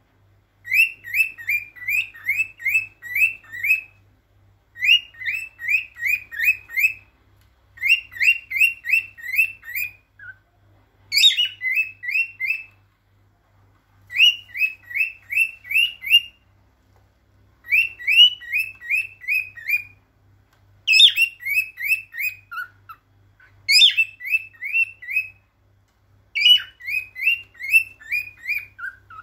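Male lutino cockatiel singing its courtship song: about ten phrases, each a quick run of five to seven rising whistled notes lasting roughly one and a half seconds, with short pauses between. Some phrases open with a sharper, higher upward note.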